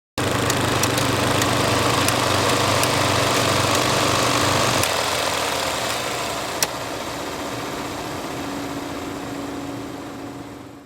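Film projector running: a steady mechanical whir and rattle with scattered light clicks. A low hum drops out about halfway, after which the running grows gradually quieter, with one sharp click about two-thirds of the way through.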